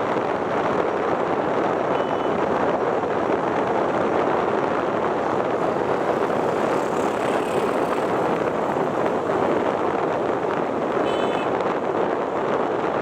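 Steady rushing noise of a river passenger launch under way, engine and water sounds blended into an even roar. A brief faint high tone sounds about eleven seconds in.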